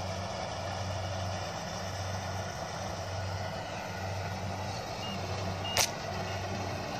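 Kubota combine harvester running steadily while cutting rice, a low engine hum under a steady machine rush. One sharp click stands out near the end.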